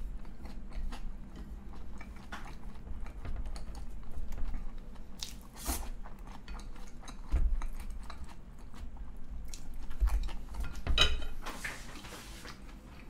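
Close-up chewing of a mouthful of food, with chopsticks clicking and scraping on a plate in many small sharp taps and a few louder bursts of noise.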